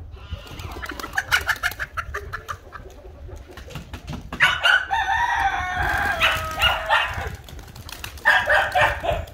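A rooster crowing: one long call about four and a half seconds in that ends on a held note, then a shorter call near the end, with chickens clucking around it.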